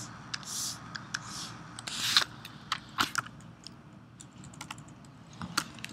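Irregular typing and clicking on a computer keyboard, with a few short swishing noises in the first two seconds, the loudest about two seconds in.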